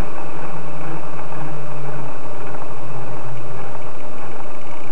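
Model helicopter engine running slowly on the ground with a steady noisy whir; its low tone sinks slowly in pitch and fades out near the end.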